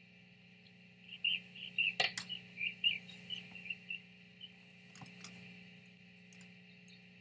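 A quick run of short, high chirps from a bird for about three seconds, with a sharp knock about two seconds in and a smaller one about five seconds in as a rooster flaps at a mirror and strikes its own reflection. A steady low hum runs underneath.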